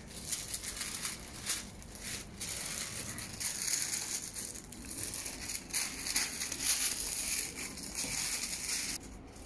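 Tissue paper rustling and crinkling as it is unfolded and pulled back by hand, an irregular run of scratchy crackles.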